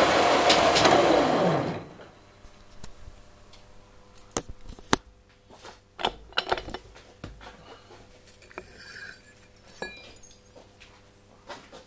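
Milling machine running, then switched off about two seconds in, its motor and spindle winding down with a falling pitch. After that, scattered light clicks and knocks over a faint steady hum.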